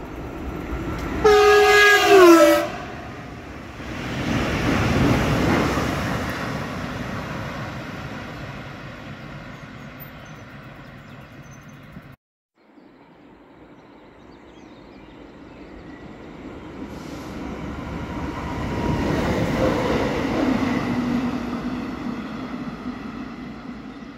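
Horn of a Stadler FLIRT electric multiple unit sounding a loud chord of several tones, its pitch dropping near the end, followed by the train running past on the rails, loudest a few seconds later and then fading away. After a sudden cut, another train approaches and passes, building to a peak and then fading.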